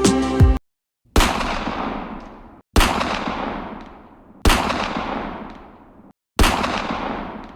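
Four gunshot sound effects, each a sharp bang trailing off in a long echoing decay, spaced about a second and a half apart. Background music cuts off just before the first.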